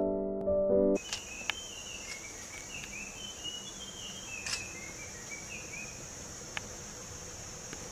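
A short bit of piano-like music ends about a second in. It gives way to a steady high-pitched drone of insects such as crickets or cicadas. Short bird chirps come and go over the next few seconds, along with a few faint clicks.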